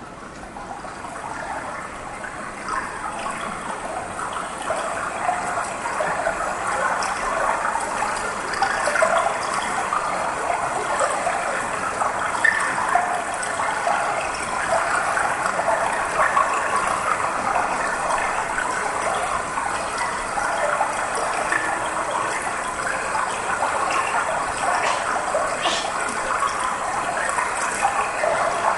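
Rushing, flowing water played as a recorded soundscape through a theatre's sound system. It fades in over the first couple of seconds, then runs as a steady dense wash.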